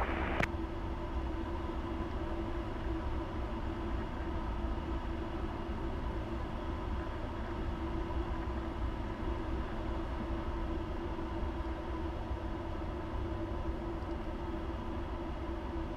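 Steady drone of a Cessna's single piston engine and propeller heard inside the cockpit, one constant tone over a low rumble. A radio exchange cuts off with a click just after the start.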